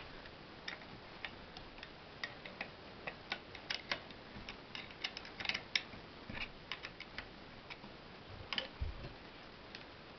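Irregular light clicks and taps from an electric motor's end shield and housing being handled and fitted during reassembly, thinning out near the end. A dull thump comes about nine seconds in.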